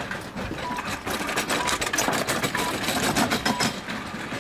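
Patient monitor on the stretcher giving a short single-tone beep about once a second, over a rapid mechanical clatter from the stretcher being wheeled along, loudest in the middle.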